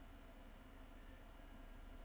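Near silence: faint steady room tone with a low hum and a thin high whine.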